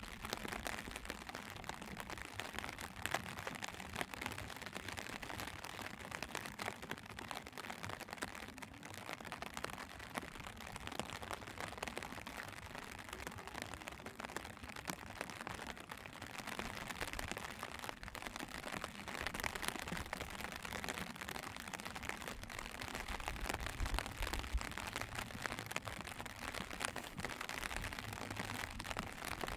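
Steady rain pattering on an open umbrella: a dense, even patter of fine drop ticks. A low rumble comes and goes in the last few seconds.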